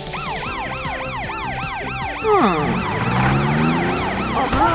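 Cartoon police siren yelping in quick rising-and-falling sweeps, about three a second. A bit over two seconds in, louder falling swoops cut across it and the sweeps continue.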